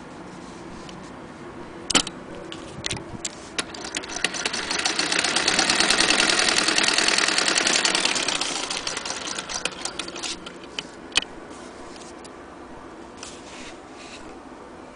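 Vintage West German Frister & Rossmann sewing machine stitching through heavy fabric: a few sharp clicks, then a fast, even run of stitches that grows louder, holds for a few seconds and fades away, with one more click near the end.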